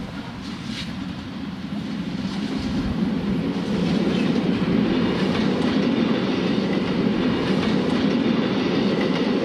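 Red metre-gauge electric train of the Appenzeller Bahnen passing close by. Its running noise swells over the first few seconds and then holds steady, with wheels clicking over the rail joints.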